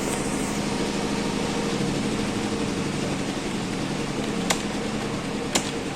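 Steady mechanical hum of a running machine with a few steady tones, and two sharp clicks about a second apart near the end.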